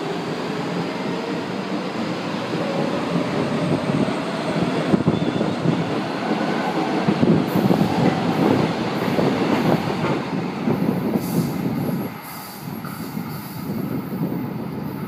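São Paulo Metro train pulling out of the station and running past, with wheel-on-rail noise and some wheel squeal, growing louder as it gathers speed. About twelve seconds in, the sound drops suddenly to a quieter, more distant train.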